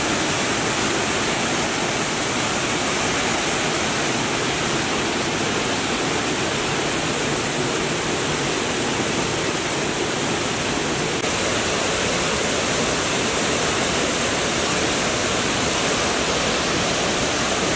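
Waterfall cascading over rock ledges in full flow after heavy rain: a steady rush of white water, the hiss getting a little brighter about eleven seconds in.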